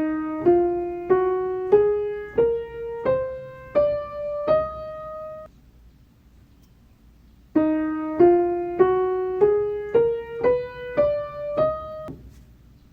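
Piano playing a slow rising line of single notes, eight notes climbing step by step over about five seconds. After a pause of about two seconds, the same rising line starts again.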